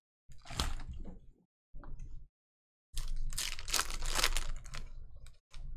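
Packaging crinkling, tearing and scraping as trading card boxes and foil packs are opened and handled, in several bursts, the longest from about three seconds in to near the end.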